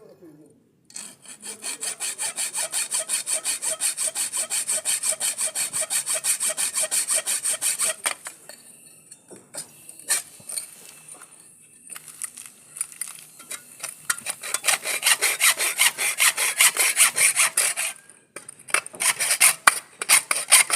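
Hacksaw cutting through galvanized iron pipe in fast, even strokes. It stops about eight seconds in, with a few knocks during the pause, then resumes about six seconds later and keeps going to the end with one brief break.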